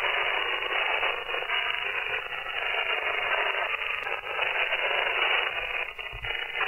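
Static from a web SDR receiver tuned to the 27 MHz CB band in upper sideband (USB): a steady hiss squeezed into a narrow voice-band passband, with no station heard clearly.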